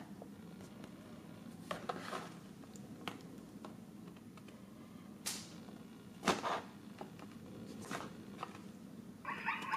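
Plastic foil blind bag crinkling in a few short, irregular bursts as it is handled, over a low steady hum. Near the end a rapid pulsing call begins.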